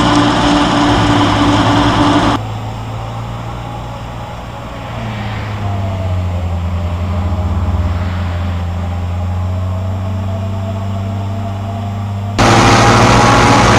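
Engines of heavy farm machinery running steadily. The sound changes abruptly twice: loud running, then a quieter stretch where the engine pitch rises slightly, then loud again.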